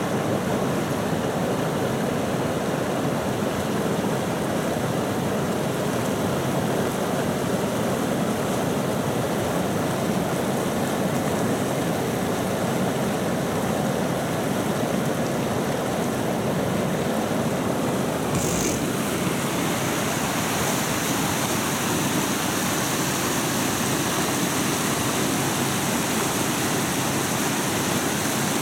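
Icy mountain river rushing over stones: a steady, loud noise of fast water. About two-thirds of the way through there is a brief click and the rush turns hissier.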